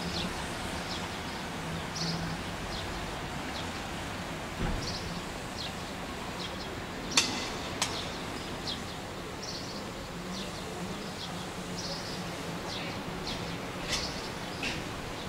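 Small birds chirping, short high calls scattered throughout, over a steady background hiss. Two sharp clicks stand out about seven and eight seconds in.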